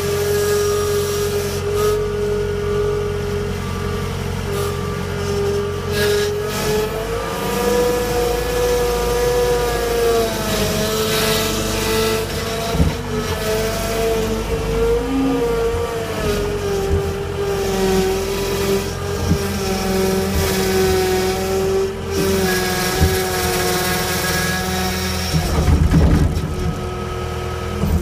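John Deere 318 skid steer running under load as it pushes through brush, its engine-and-hydraulic whine rising and dipping in pitch as the load changes. Scattered knocks throughout, and a loud cluster of cracking and knocking near the end as the machine hits branches.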